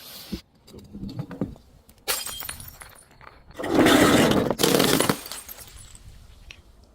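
Glass bottle breaking: a sharp crack about two seconds in, then a loud shattering crunch lasting about a second and a half, followed by a few faint clinks.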